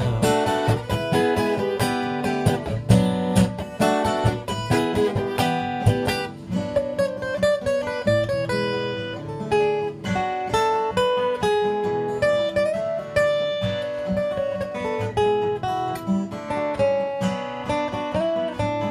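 Instrumental break on acoustic guitar: strummed chords, with a single-note melody line coming in over them about six seconds in.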